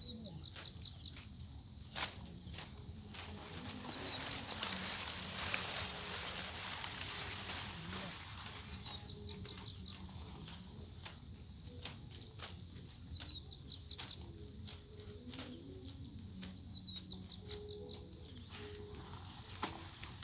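A steady, high-pitched chorus of insects, with short bursts of chirping and scattered light clicks.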